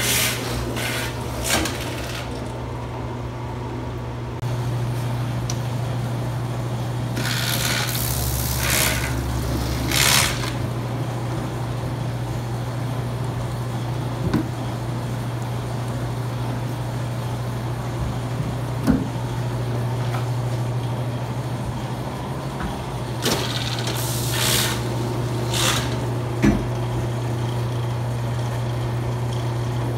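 Electric motors of honey-extracting machinery running with a steady low hum that gets louder a few seconds in. There are a few short hissing bursts and scattered clicks.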